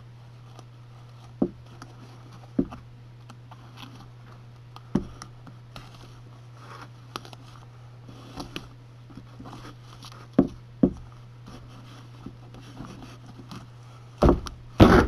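A sneaker handled and stitched with a needle and thread close to the microphone: scattered knocks and taps, with two louder thumps near the end, over a steady low hum.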